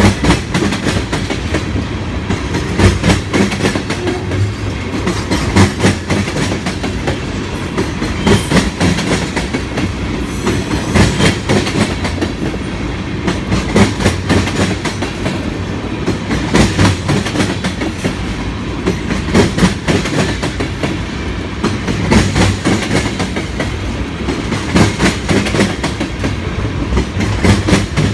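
Freight train cars, mostly tank cars and covered hoppers, rolling past with a steady rumble of steel wheels on rail and a clickety-clack of clicks recurring roughly every three seconds as each car's wheel sets cross the rail joints.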